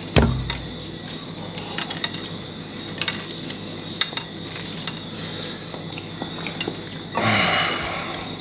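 Small clicks and crackles of eggshell breaking as hot hard-boiled eggs are peeled by hand, with a single loud knock just after the start as a plastic salt shaker is set down on a glass tabletop. A short breathy rush comes near the end.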